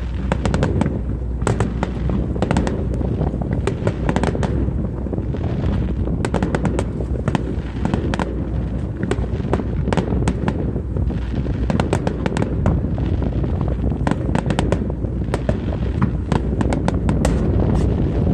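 Aerial fireworks bursting over water: a rapid, continuous string of sharp cracks and pops, over a steady low rumble.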